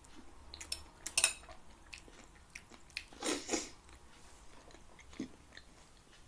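Metal fork clicking and scraping against a plate as food is scooped up, with chewing in between; the sharpest clicks come about a second in and a longer scrape around the middle.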